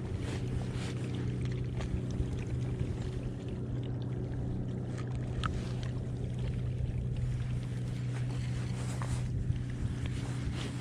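Boat motor running at a steady low hum, with scattered light clicks and knocks.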